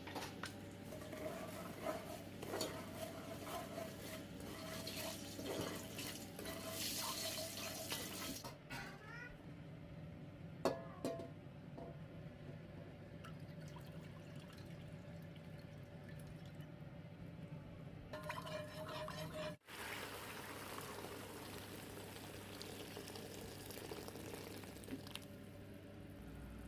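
Kitchen water running and splashing, as from a tap into a sink or pot, with scattered clinks and knocks. The sound changes abruptly twice.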